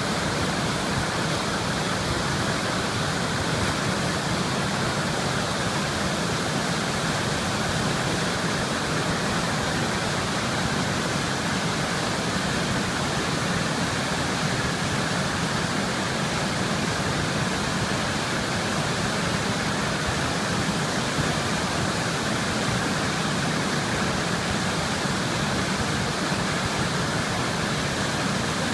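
River water flowing with a steady, unbroken rush.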